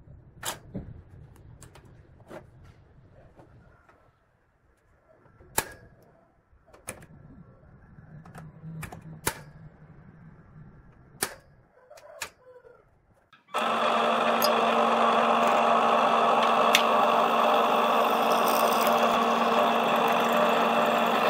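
A few sharp metallic taps and clicks as square steel tube is marked and center-punched on a steel bench; about thirteen seconds in, a drill press starts abruptly and runs steadily with a twist bit boring into the square steel tube.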